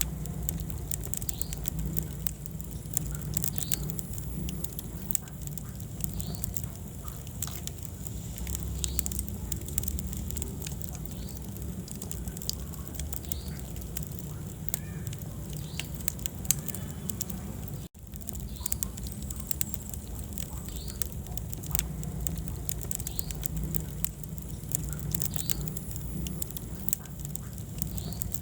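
Wood fire crackling, with frequent sharp small pops over a steady low rumble of the flames. The sound cuts out for an instant about two-thirds of the way through.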